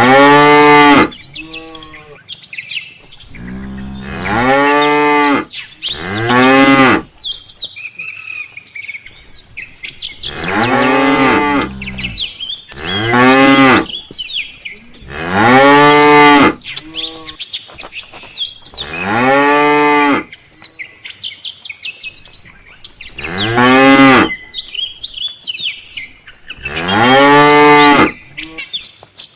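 Cattle mooing again and again, about nine long calls, each rising and then falling in pitch. Small birds chirp faintly between the calls.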